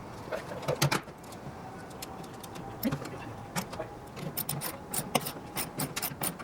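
Hand-tool work on an airframe: sharp clicks and taps, a few at first, then a quick run of about five a second in the last two seconds.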